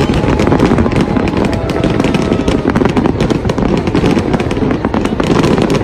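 Fireworks display going off: a dense, continuous run of crackling pops and bangs.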